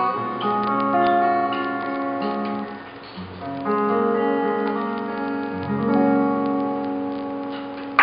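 Acoustic guitar played alone without singing: ringing chords and picked notes that change every second or so, softening briefly about three seconds in before a new low chord sounds, as the song closes.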